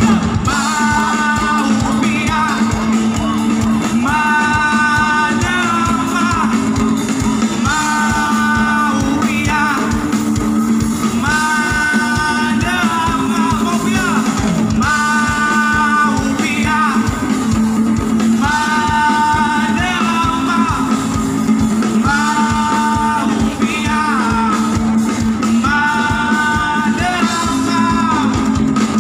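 Live band playing a song with singing, amplified through a large outdoor PA and heard from amid the crowd; the sung phrases recur every few seconds over a steady low sustained note.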